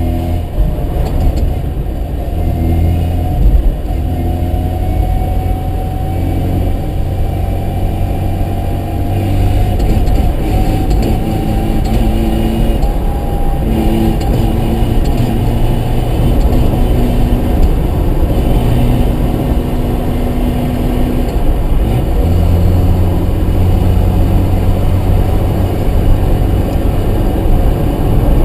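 Mazda RX-7's rotary engine running as the car is driven, its note shifting up and down in pitch several times, on a car whose gearbox makes a knocking noise.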